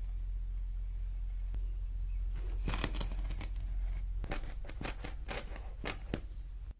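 Multitool knife blade cutting through carpet and its backing: a run of about ten short, sharp snips, starting about a third of the way in, over a steady low hum.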